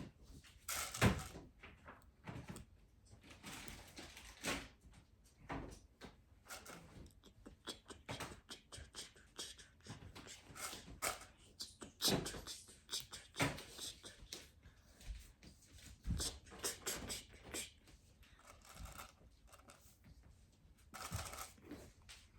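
Plastic Lego pieces clicking and rattling as they are handled and pressed together: irregular small taps and snaps throughout, a few louder clicks among them.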